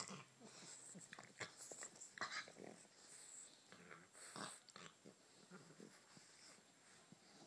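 Bulldog puppy making a string of short, irregular play noises while wrestling with a puggle.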